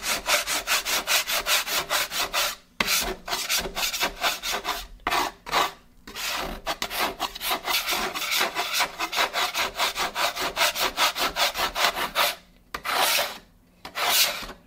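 A scraper worked in quick back-and-forth strokes over a flat top griddle, about five strokes a second, with a few short pauses. It is scraping off oiled, caked-on residue that is hard to get off.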